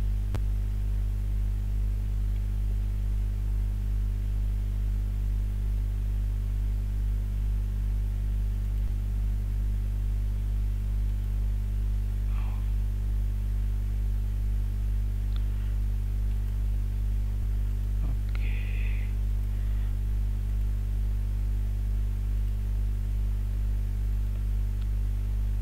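Steady low electrical mains hum, a constant buzz with its overtones, with a couple of faint short sounds about halfway and two-thirds of the way through.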